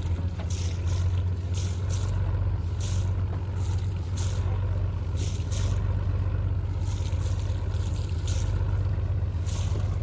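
Small diesel boat engine running steadily with a deep even hum, and irregular short hisses on top.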